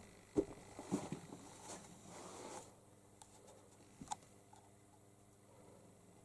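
Faint scratching, rustling and a few light taps of a kitten's claws and paws on a fabric stool cover as it plays with its mother below, with one small click about four seconds in.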